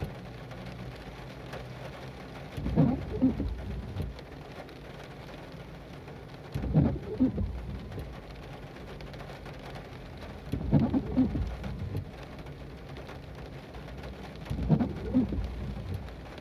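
Car windshield wipers on intermittent, sweeping about every four seconds, each sweep about a second long with an out-and-back double pulse, over steady rain on the car.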